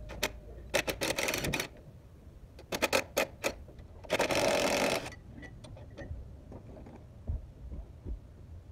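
DeWalt cordless impact wrench hammering bolts loose, in three bursts of rapid clatter about a second, three seconds and four seconds in, the last the longest.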